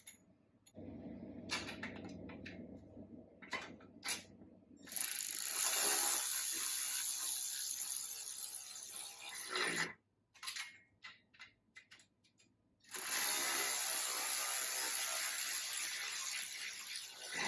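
Hand ratchet wrench running a nut down onto the carriage bolt that holds the pedal to the mower's foot pan: two long runs of rapid ratcheting clicks, a few seconds each, with separate single clicks before and between them.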